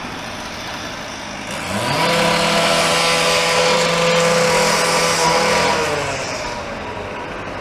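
A motorised cutting tool revs up quickly, runs at a steady high pitch for about four seconds, then winds down, as workers cut through something.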